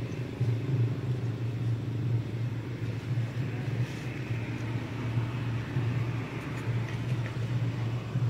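A steady low rumble with a fluttering noise above it, even in level throughout.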